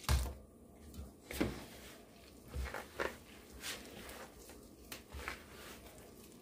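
Hand in a thin plastic glove mixing flour and water into dough in a bowl: scattered soft crinkles and thumps, the loudest right at the start.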